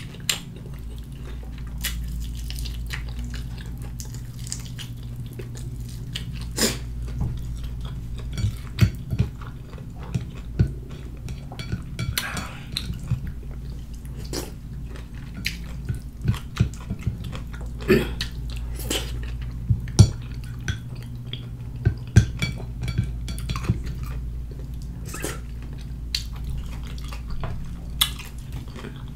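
Close-miked chewing and mouth smacking of a person eating fried chicken with her fingers: irregular wet clicks and smacks over a steady low hum.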